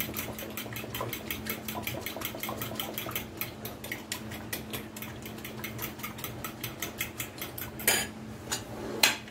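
A fork whisking an egg into cream in a glass bowl, clinking against the glass about five times a second. Two louder knocks come near the end.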